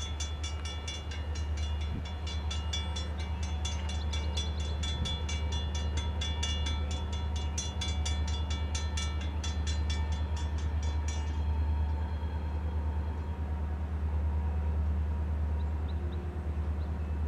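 Railroad grade-crossing warning bell ringing in rapid, even strokes while the crossing gates lower, stopping about two-thirds of the way through once the gates are down. A steady low rumble runs underneath.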